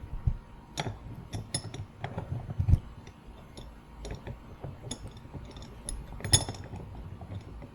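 Metal sockets and a bench vise being handled and lined up: scattered light clinks and knocks. The sharpest clinks come about a second in and again near six seconds, with a dull knock between two and three seconds in.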